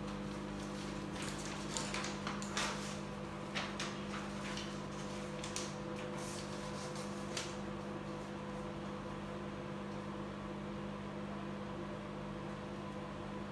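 Microwave oven running with a steady electrical hum, and a few light clicks and knocks in the first seven seconds or so.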